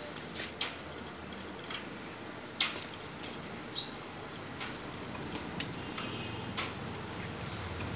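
Scattered light clicks and taps of hand tools and small parts during repair work on a motorcycle, about a dozen, irregularly spaced. A low hum builds from about six seconds in.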